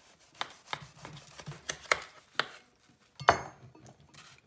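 Knife cutting through a baked yeast doughnut on a parchment-lined metal sheet pan: a run of crisp strokes about every half second, with one louder knock a little past three seconds in.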